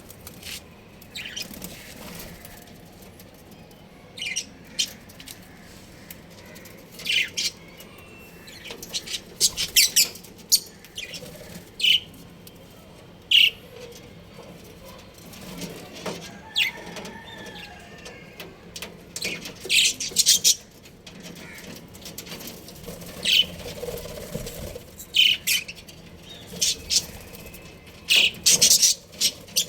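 Budgies chirping: short, sharp calls that come irregularly, some in quick bursts of several.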